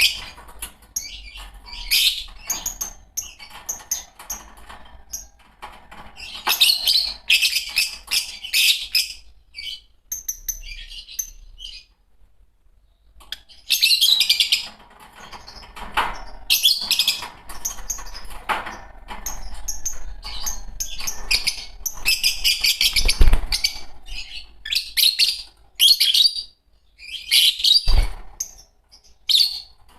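A pair of Fischer's lovebirds chirping and chattering in rapid shrill bursts, with a pause of a few seconds near the middle. Two dull thumps, about two-thirds of the way in and near the end.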